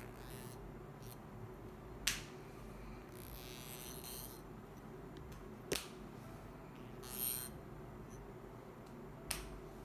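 Ear-cleaning tools working close to an ear: soft, high-pitched scratchy rustles twice, and three sharp clicks spread a few seconds apart.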